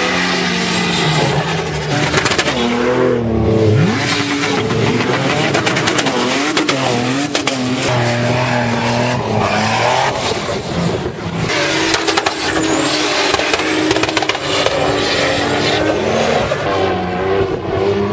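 Toyota Land Cruiser 4x4 engines revving hard on sand dunes, the pitch rising and falling repeatedly as the drivers work the throttle, over a steady hiss of noise.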